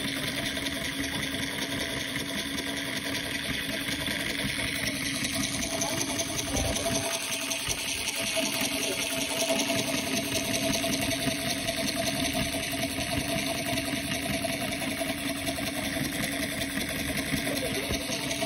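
Model oil pumpjack desk toy running on its small electric motor: a steady mechanical whir from the motor and the moving beam and crank.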